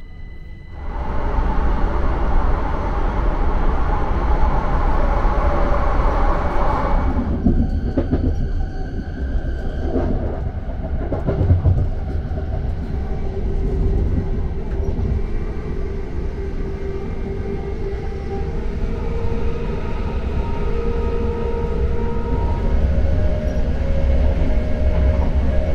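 Heathrow Express Class 387 electric train running at speed, heard from inside the carriage: a steady loud rumble of the wheels on the track that starts suddenly about a second in, with a faint steady whine over it.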